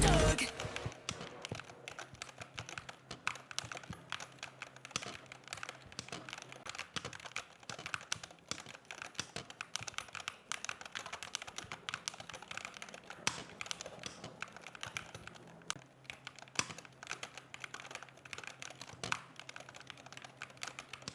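Typing on a CHERRY MX 8.2 TMR keyboard with magnetic (TMR) switches: an irregular run of key clicks, several a second.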